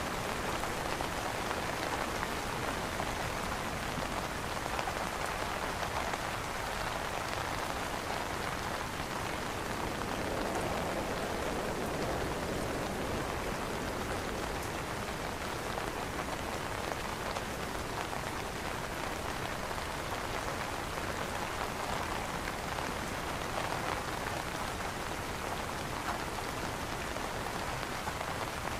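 Steady rain falling on an umbrella canopy: an even hiss of many drops, with single drop hits standing out here and there.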